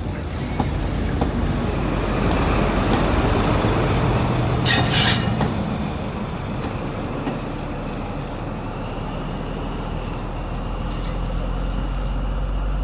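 An HST (InterCity 125) Class 43 diesel power car runs with a low steady engine drone as the train pulls away over the rails. A short, loud hiss-like burst of noise comes about five seconds in.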